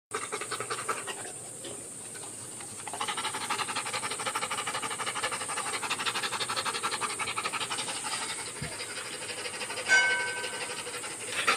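Dog panting fast and hard, a quick, even run of breaths. About ten seconds in comes a short, high-pitched squeal.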